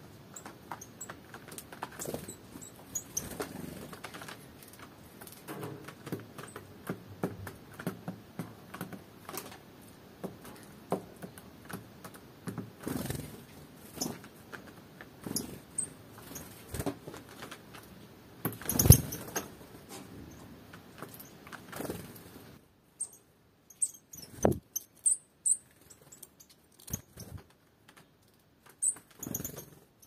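Eurasian nuthatch handling sunflower seeds on a cloth-covered board: irregular light taps, pecks and scrabbling, with a louder knock about two-thirds of the way through and a few short high chirps.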